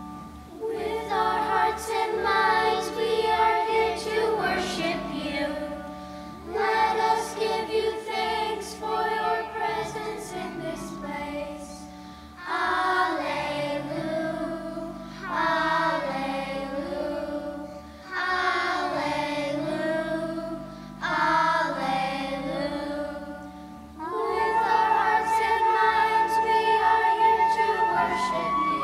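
Children's choir singing a hymn in unison, in phrases of about five seconds each with short breaths between them, over sustained piano accompaniment.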